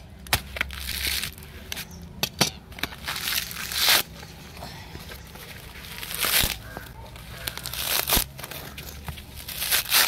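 Dry coconut husk being torn apart by hand: coir fibres ripping and crackling in irregular pulls, some short and sharp, some drawn out over about half a second.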